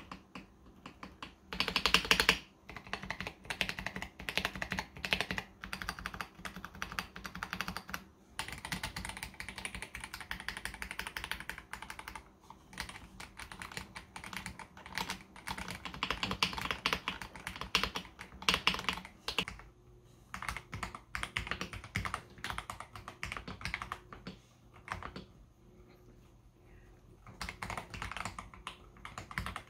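Typing on a KBD67 Lite R3 mechanical keyboard fitted with Akko CS Jelly Blue tactile switches: runs of rapid keystroke clacks with short pauses. The switches are stock at first, then hand-lubed after about eighteen seconds.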